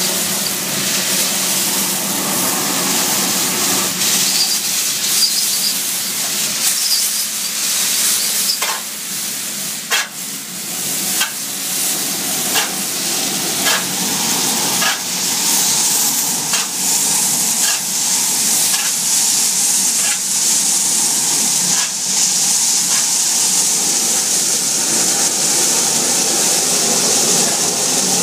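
Steady, loud hiss of air being drawn into a sewer-cleaning vacuum hose. About eight seconds in, a run of about a dozen sharp knocks begins, roughly one a second, and it stops well before the end.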